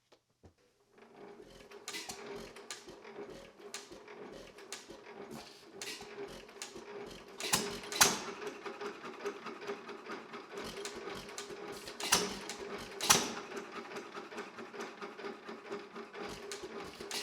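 1 1/2 hp Worthington hit-and-miss engine running: a steady mechanical clatter with soft low thumps about twice a second. A few much louder sharp bangs stand out, most plainly about eight, twelve and thirteen seconds in.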